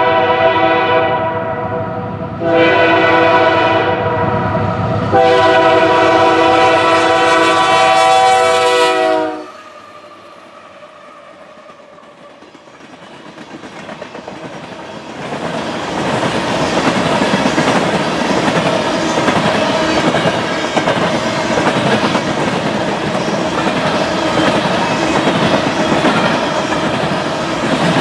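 Freight-train diesel locomotive's multi-chime air horn blowing for the grade crossing: the first blast ends about two seconds in, then a second, then a longer third blast ending about nine seconds in. From about fifteen seconds in, empty oil tank cars roll past with a steady rumble and clatter of wheels over rail joints.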